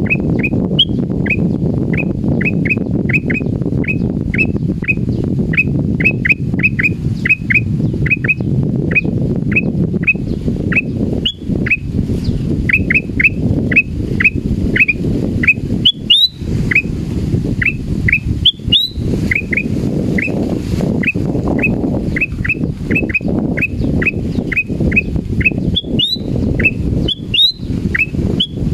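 Male ruby-throated bulbul (kutilang emas) calling over and over: short sharp whistled notes that slide in pitch, about two a second, with an occasional higher note. The uploader takes the calls for fright. A steady low rumble runs underneath.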